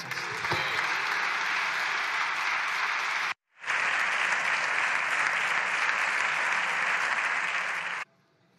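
Applause from the deputies in the chamber at the end of a speech: dense, steady clapping that drops out completely for an instant about three and a half seconds in, then resumes and cuts off abruptly near the end.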